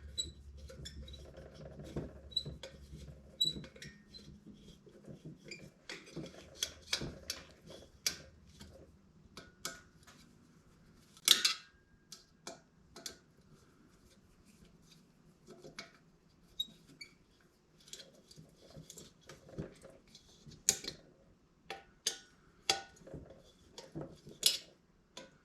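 Hand tools and small metal parts clinking and clicking at irregular intervals, with one louder clank about eleven seconds in, as a cleaned diesel heater is bolted back together.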